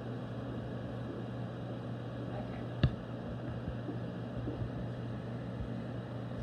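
Steady low fan hum of a room's ventilation and equipment, with a single sharp click about three seconds in.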